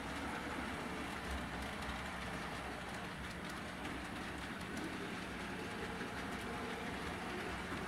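HO scale model freight train rolling along the track: a steady whir and rumble of the cars' wheels on the rails, with light ticking.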